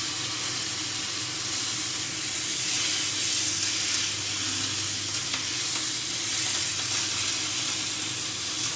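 Rump steak frying in its own rendered fat in a hot pan, a steady sizzle, with a few faint clicks.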